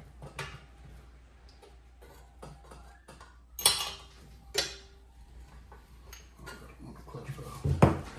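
Metal pedal parts and hardware being handled: scattered light clicks, two sharp clinks a second apart midway, the second ringing briefly, and a heavier knock near the end.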